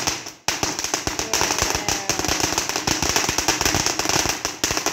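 A long string of firecrackers going off in rapid succession, a dense crackling of sharp bangs several per second, with a brief pause about half a second in.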